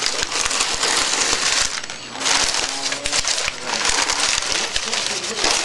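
Crumpled newspaper packing rustling and crackling as hands rummage through it inside a polystyrene-lined shipping box, in waves with short pauses.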